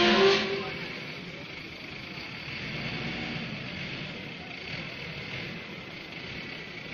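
Forklift engine running steadily while it pushes a mixer machine into a shipping container, with a brief loud pitched sound right at the start.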